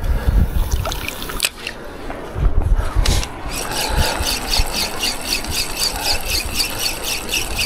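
Spinning fishing reel being cranked fast to bring in a hooked fish: after a few knocks and handling rumble, a rapid, even squeaking tick starts about three and a half seconds in, roughly six a second.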